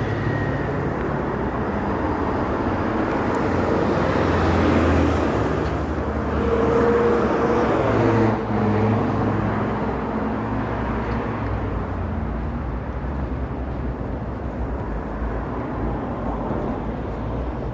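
Traffic noise, with a vehicle passing louder about four to eight seconds in.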